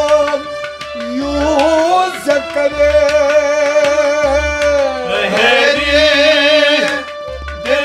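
Kashmiri Sufiyana kalam: a man sings a long, ornamented line over a steady harmonium drone and a strummed rabab, with a low beat about every second and a half.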